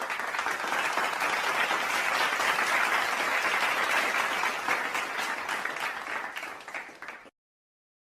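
Applause sound effect: a crowd clapping steadily, thinning out and then cutting off abruptly about seven seconds in.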